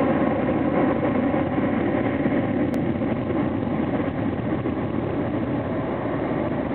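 Steady engine rumble with faint steady whining tones over it, easing slightly in level.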